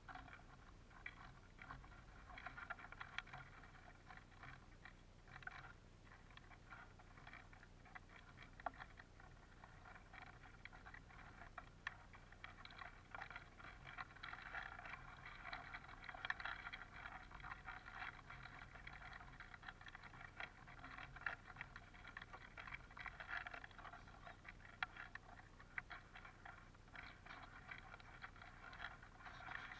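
Eurasian siskins pecking and shuffling through black sunflower seeds on a wooden feeder tray: a faint, irregular patter of small clicks and taps.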